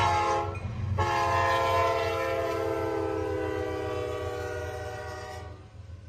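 Diesel locomotive air horn blowing a short blast and then a long one that fades away, over a steady low engine rumble.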